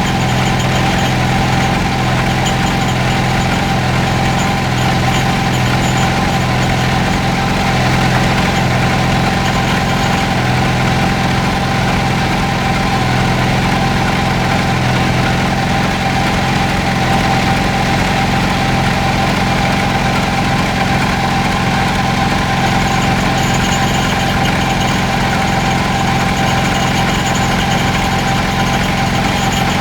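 Large engine idling steadily at an even speed, with no change in pitch or load.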